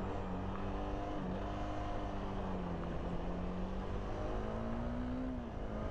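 Sport motorcycle engine running under way, heard from the rider's helmet camera over wind rush. The engine note holds fairly steady, climbs from about four seconds in, and dips briefly near the end.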